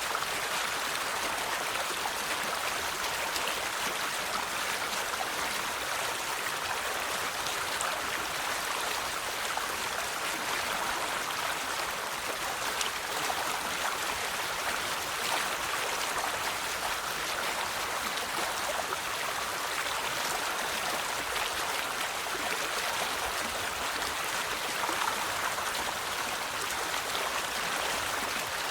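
River water flowing over stones, a steady bright rushing and splashing without pause.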